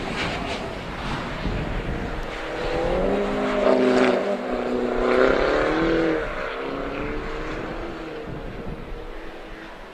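BMW E36 Compact driving past on a race track, its engine note swelling as it comes close, loudest about four to five seconds in, then fading as it moves away. Wind rumbles on the microphone underneath.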